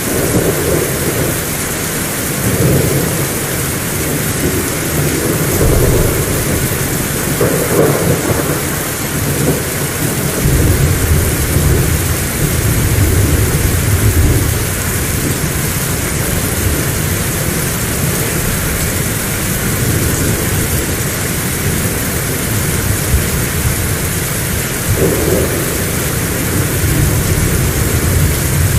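Heavy rain falling steadily, with long low rolls of thunder that swell and fade several times.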